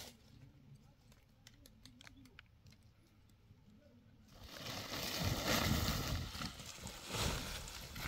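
Dry fallen leaves being handled, with faint scattered crackles. About four seconds in, a much louder, continuous rustling and crunching of dry leaves sets in, with dull low thumps mixed in.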